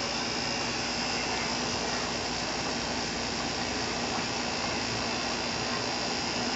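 Haier window-type air conditioner running, its compressor and fan making a steady whirring hum.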